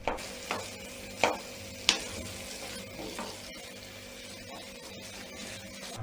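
Wooden spatula stirring and scraping jackfruit thoran in a hot frying pan, with a faint sizzle throughout and several sharp knocks of the spatula against the pan in the first two seconds.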